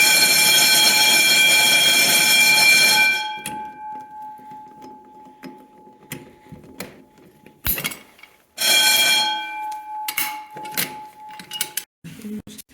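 Vintage 120VAC hardwired Edwards fire alarm sounding during an alarm test: a loud, steady signal for about three seconds that cuts off, leaving one tone fading out over a few seconds. After a few clicks it sounds again briefly, about eight and a half seconds in, and fades the same way.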